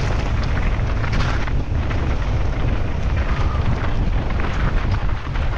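Wind buffeting the microphone over the constant rattling and knocking of a mountain bike descending fast on rough ground.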